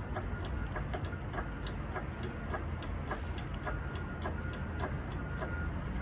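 Car engine running at idle with a regular light ticking, about three to four ticks a second, over a steady low hum.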